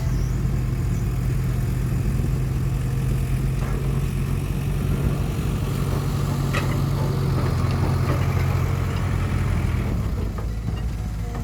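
Heavy construction machine's diesel engine running steadily, its pitch dropping a little about ten seconds in, with a brief click near the middle.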